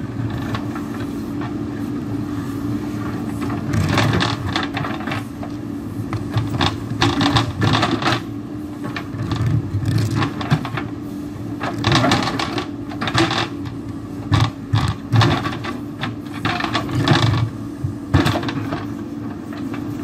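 JCB backhoe loader's diesel engine running steadily under load while its rear bucket scrapes into and breaks a hard rock bank. From about four seconds in come irregular loud bouts of steel scraping on stone and rock cracking and falling.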